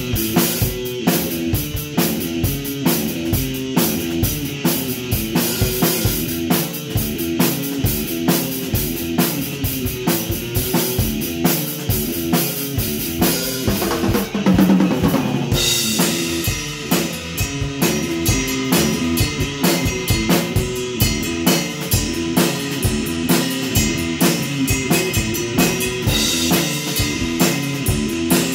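Electric guitar playing a repeating rock riff over a drum kit beat. About fourteen seconds in, the guitar holds a wavering note, and after it the cymbals ring louder.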